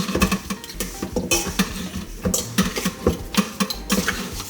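Stirring seasoned raw oxtail in a bowl: a utensil knocks, clinks and scrapes against the bowl in a quick, uneven run of clatters.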